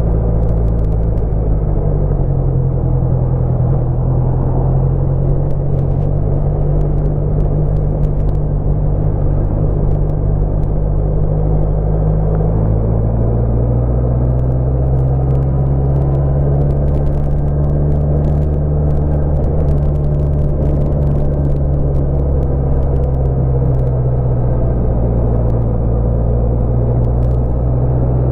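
Honda CBR650F's inline-four engine running under way at moderate speed, its low note shifting in pitch a few times, with wind and road noise over it.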